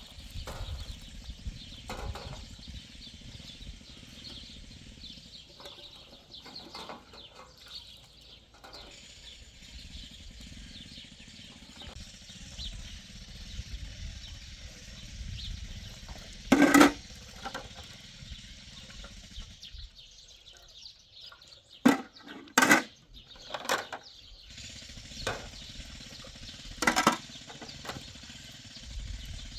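A handful of sharp knocks over a steady faint background hiss: a single one a little past halfway, a quick cluster of three a few seconds later, and one more near the end.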